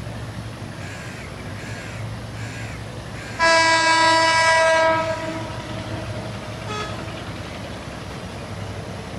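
Diesel locomotive's horn sounding one long blast about three and a half seconds in, lasting about a second and a half, over the low steady rumble of the approaching train.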